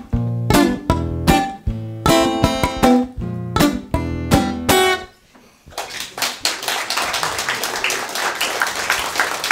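Two acoustic guitars, one a nylon-string classical, play the closing chords of a song, ringing out and stopping about five seconds in. After a brief pause, applause begins and continues.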